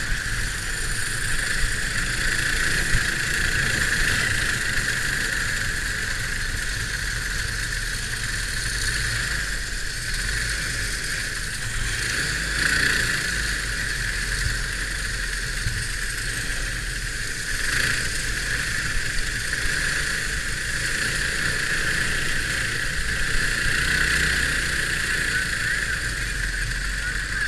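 Onboard sound of a racing go-kart's sealed Predator 212 cc single-cylinder engine held at speed, its note swelling slightly now and then, over a rough low rumble of wind on the camera.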